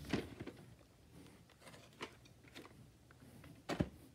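Faint clicks and rustles of a plastic VHS clamshell case being handled and turned over, with a sharper tap near the end.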